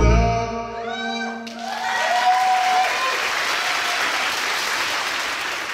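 A dance track ends and its last notes ring out and fade, then an audience breaks into steady applause, with a few whoops, about a second and a half in.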